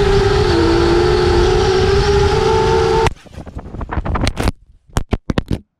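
5-inch FPV quadcopter's motors and propellers whining steadily with wind rush at speed. About three seconds in it crashes into the grassy, rocky slope: the whine cuts off suddenly and a quick run of sharp crackles and knocks follows as it hits and tumbles, then it goes still.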